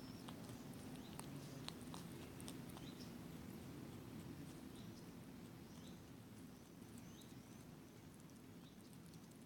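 Hedgehog chewing peanuts: faint, scattered crunching clicks, thickest in the first few seconds, over a steady low background hum.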